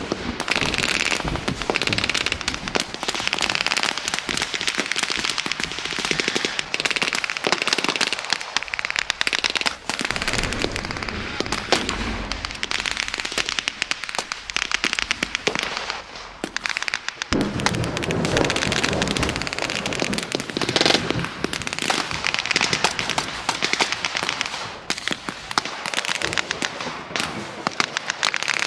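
Rifles firing blank rounds in a re-enacted firefight, many sharp cracks overlapping. From a little past halfway, a vehicle engine runs low under the gunfire.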